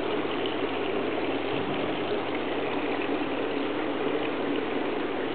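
Steady rush of running water, even and unbroken, with a faint low hum underneath.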